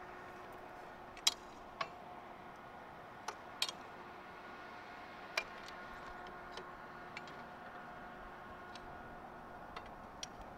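A handful of sharp, irregular clicks and ticks, loudest in the first half, over a faint steady hum.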